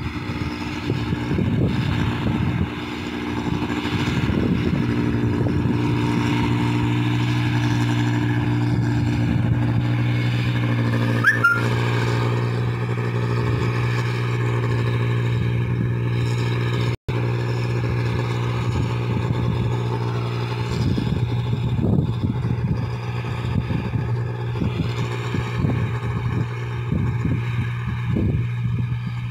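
Rice combine harvester's engine running steadily at a constant pitch, a low even hum with overtones. The sound drops out for an instant about two-thirds of the way through.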